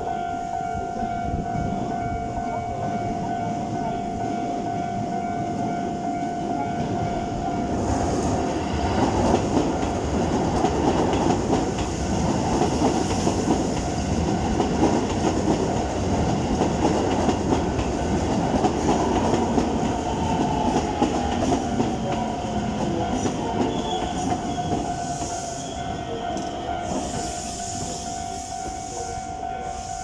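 Keikyu 1500-series electric train slowing into a station across a level crossing. Its wheels rumble and clatter, loudest for about fifteen seconds in the middle, and a faint falling whine from its GTO inverter sounds as it brakes. The crossing alarm rings steadily throughout.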